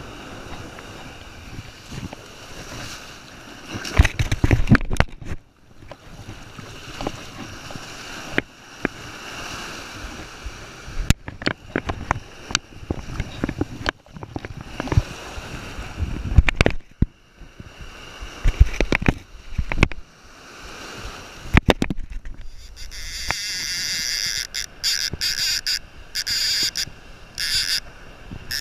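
Ocean surf washing and wind buffeting the microphone, with loud splashes and scuffs as a shark is carried down the wet beach and let go in the breaking waves. Near the end the sound changes to a loud, high, rapidly stuttering whir: a conventional fishing reel's drag paying out line.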